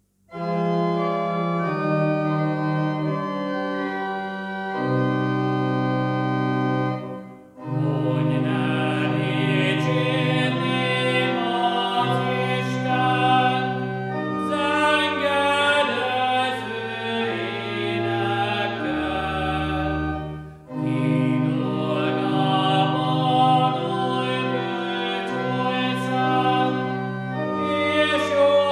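An organ plays held chords as a short introduction, then a man sings a liturgical chant over the organ accompaniment, pausing briefly between phrases about two-thirds of the way through.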